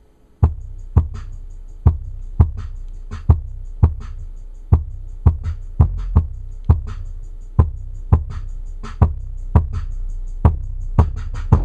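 Bass-heavy electronic beat with hard, sharp drum hits, played loud through a bare Logitech Z-2300 8-inch subwoofer driver in free air. It starts about half a second in, the deep bass running steadily under the hits.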